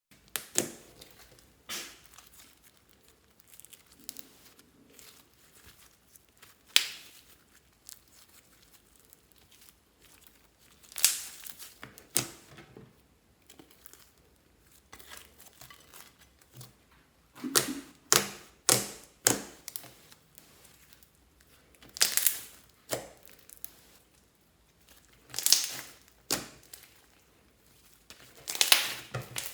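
Fluffy slime being stretched and squeezed by hand, giving off crackling, tearing sounds in irregular bursts a few seconds apart.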